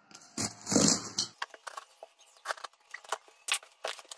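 A box cutter slicing through packing tape and plastic wrap on a cardboard parcel, with one loud tearing rasp about half a second in. After it comes crackling and rustling as the cardboard flaps are opened and the paper packing inside is handled.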